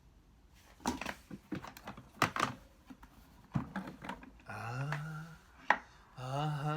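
Plastic vacuum-cleaner parts and packaging being handled: a quick run of light clicks and knocks. Near the end a man's voice makes two drawn-out hums.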